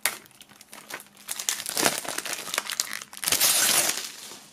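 Plastic shrink-wrap film being slit with a serrated knife along a CD case and peeled off, crinkling in irregular bursts, loudest about three seconds in.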